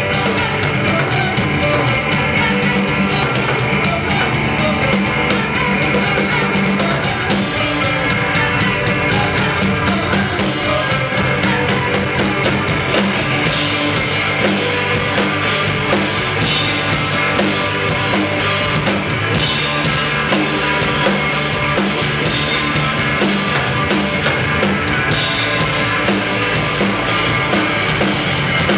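Live rock band playing loud and steady: a full drum kit with cymbals, over electric bass and guitar. The cymbal wash gets brighter about halfway through.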